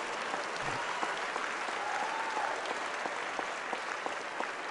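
Audience applauding: a steady mass of hand-clapping that eases slightly near the end.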